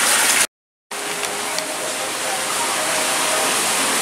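Steady rushing noise of running water, with faint voices underneath; the sound cuts out completely for a moment about half a second in.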